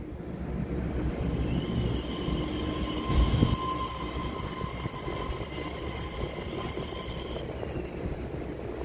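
Taiwan Railway EMU3000 electric multiple unit pulling out and passing close by, its cars running with a steady rumble. A steady high whine sits over it for several seconds, with a heavy thud about three seconds in.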